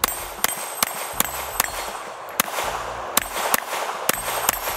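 Compensated CZ Checkmate race pistol fired in rapid succession, about a dozen shots at two to three a second. The steel plates of a plate tree ring as they are hit.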